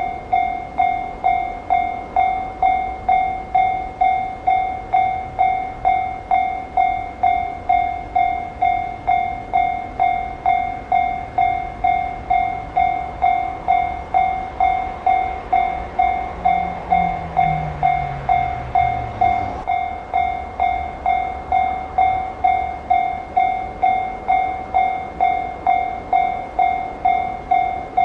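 Japanese railway level-crossing alarm ringing steadily, a bright clanging strike repeating at nearly two a second. Midway a low train rumble with a falling tone swells under it and cuts off suddenly.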